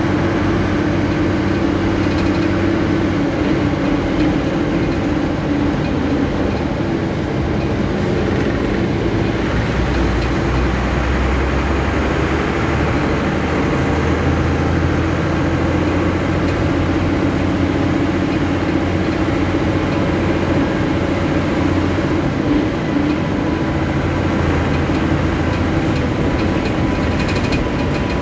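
Steady engine and road noise of a moving motor vehicle: a continuous low rumble and hum that holds an even level.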